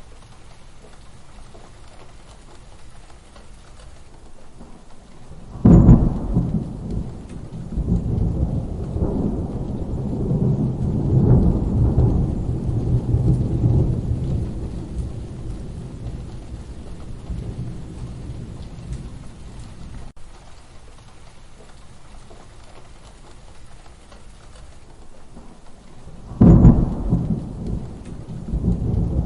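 Steady rain falling, with two thunderclaps: one about six seconds in that rumbles on for about ten seconds, and another sharp clap near the end that starts rumbling again.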